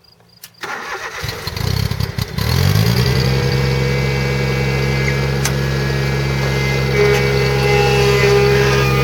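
Exmark Lazer Z XP zero-turn mower's 31 hp liquid-cooled Daihatsu engine being started. It cranks unevenly for about two seconds, catches and rises in pitch, then runs steadily from about three seconds in.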